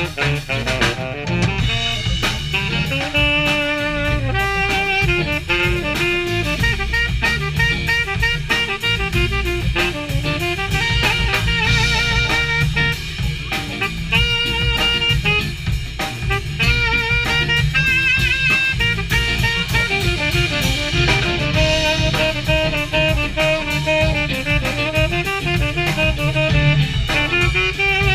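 Jazz-funk band playing live in a steady groove: saxophone leading with melodic lines over drum kit, electric guitar, double bass and keyboard.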